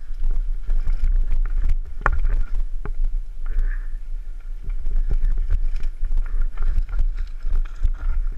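Downhill mountain bike ridden fast over rough trail, heard from a helmet camera: a steady low wind rumble on the microphone under a constant clatter of rattles and knocks from the bike over roots, rocks and boards. The sharpest knock comes about two seconds in.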